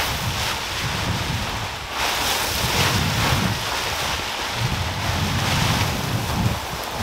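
Wind buffeting the microphone outdoors: an uneven low rumble that surges and eases every second or so, over a steady rushing hiss.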